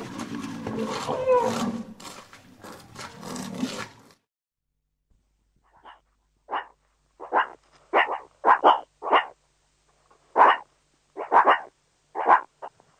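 A rhinoceros calls with a rough, dense sound that glides in pitch for about four seconds. After a short silence, a meerkat gives a string of short, sharp calls, about two a second at uneven spacing.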